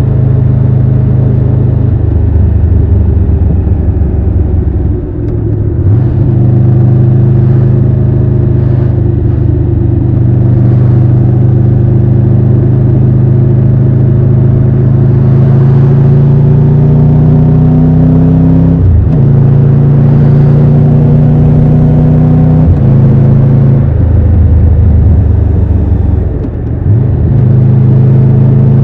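Triumph Tiger 1200 Rally Pro's three-cylinder engine pulling on the road. Its note rises slowly through a long pull, drops suddenly at about 19 seconds and again at 23 seconds as the gear or throttle changes, then steps back up near the end.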